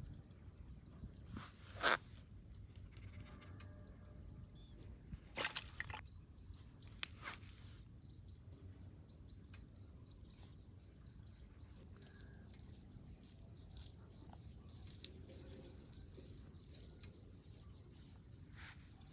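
Cast net being handled and untangled: soft rustling of the mesh with a few sharp clicks, the loudest about two seconds in. A faint, thin, steady high-pitched tone runs underneath.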